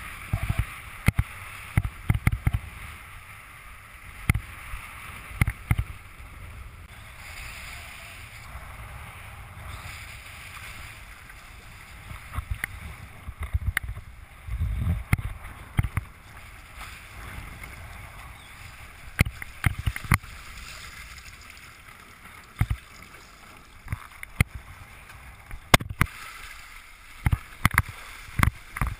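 Wind rumbling on an action-camera microphone with water splashing against a windsurf board, broken by many sharp, irregular knocks and slaps of the board and rig on the chop.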